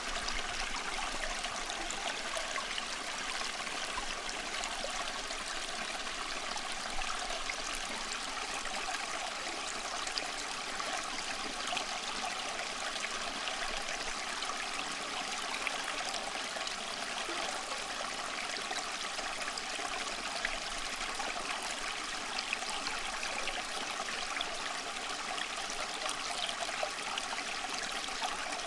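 Steady flowing water like a stream or brook, an unbroken rushing and trickling bed of sound.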